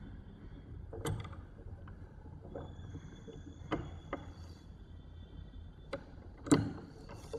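A pipe vise and metal pipe being handled: a few scattered metal clinks and knocks as the vise's screw handle is turned and the pipe is shifted in the jaws. The loudest knock comes about six and a half seconds in.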